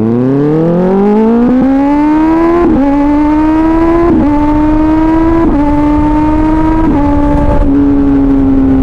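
2024 Kawasaki Ninja ZX-6R's 636 cc inline-four through an SC-Project exhaust, accelerating hard. The engine note rises steeply at first, then the bike shifts up through the gears about every second and a half, each shift a brief break in the note before it climbs again.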